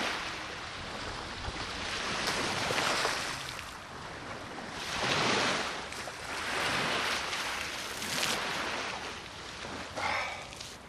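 Sea waves washing onto the shore, surging every second or two, with strong wind buffeting the microphone. A short voice-like sound comes near the end.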